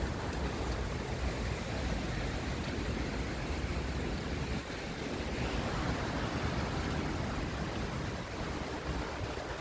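Steady rushing of rain in a thunderstorm, with wind buffeting the microphone.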